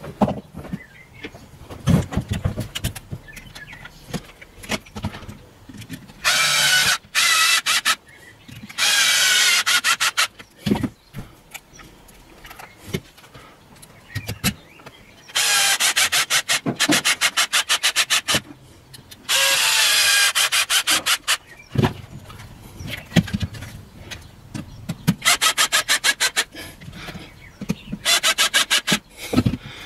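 Cordless screwdriver driving screws into a plastic battery pack housing: about six runs of its motor, each one to three seconds long, with clicks and knocks of tools and plastic handled between them.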